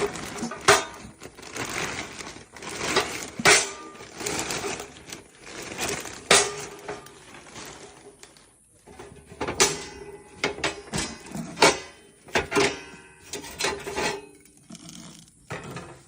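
Metal parts of a fire pit clinking and clanking irregularly as they are handled, many knocks with a short ringing tone after them.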